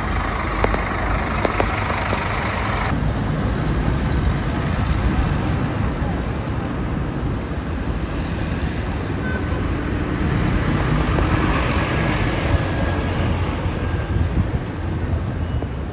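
City street traffic: the low engine rumble of a city bus close by, then a steady wash of passing cars, with one vehicle swelling past in the second half.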